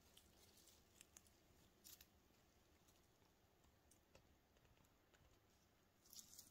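Near silence, broken by a few faint crackles of dry leaves and twigs underfoot, with a small cluster near the end.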